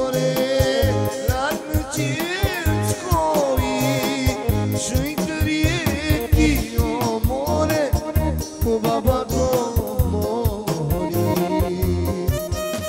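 A song: a voice sings a heavily ornamented, wavering melody over a steady drum beat and keyboard accompaniment.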